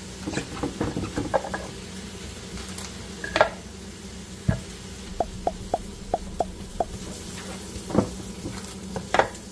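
Plastic cling wrap crinkling as pieces of boiled beef are wrapped by hand. A run of light, evenly spaced ticks comes midway, and a few soft thumps fall as pieces go down on a wooden cutting board.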